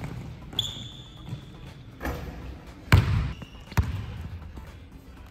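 Basketball bouncing on the court: a faint bounce about two seconds in, then two hard bounces close together about three seconds in, with a short high squeak near the start.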